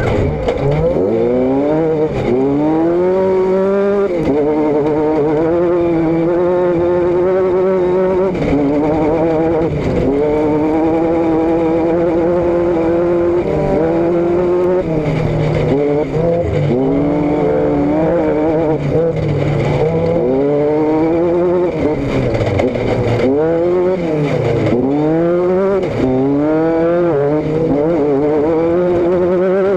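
Vehicle engine and exhaust heard from a rear-mounted GoPro while driving. The engine note climbs and falls again and again as it accelerates and comes off the throttle, holding steadier for several seconds in the middle.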